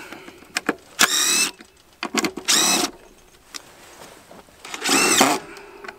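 Cordless drill run in three short trigger bursts, each about half a second, its motor pitch rising and then falling, with a few sharp clicks between bursts.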